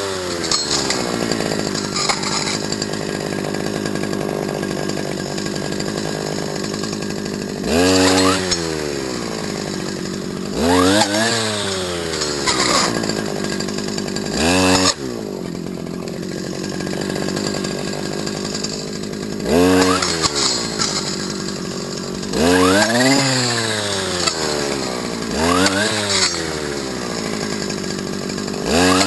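Stihl FS250 brush cutter's two-stroke engine running at idle, revved up sharply and let back down about eight times.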